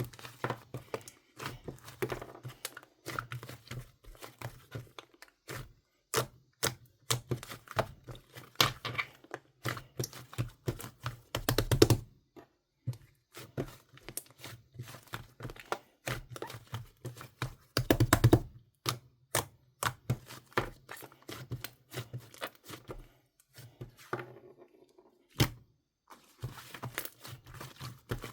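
Strawberry smoothie slime being squished, pressed and stretched by hand, giving dense runs of crackling clicks and pops from air pockets, with heavier clusters about 12 and 18 seconds in.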